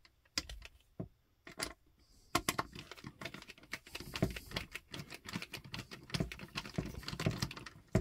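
Irregular light clicks and taps of a Klein 15-in-1 screwdriver working a terminal screw on a plastic light-fixture base, tightening a wire under it. The clicking is sparse at first and gets busier a couple of seconds in.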